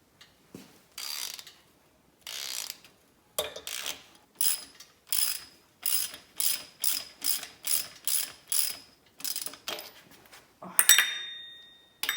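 Hand socket ratchet clicking in a run of quick, even strokes, about two and a half a second, as it backs a nut off a cylinder-head stud of a VW Type 1 1600 engine. A sharp metallic clink with a short ring near the end.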